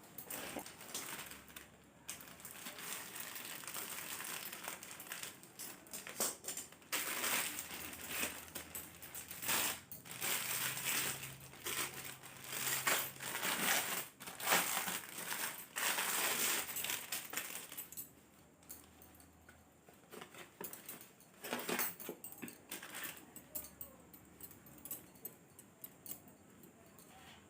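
Crinkly packaging rustling and crackling as a t-shirt is unwrapped, in irregular bursts. The rustling is busiest for the first eighteen seconds or so, then turns fainter and more scattered.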